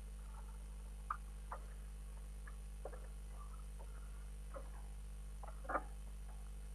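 Footsteps coming down concrete steps: a few faint, irregular taps and scuffs over a steady low hum.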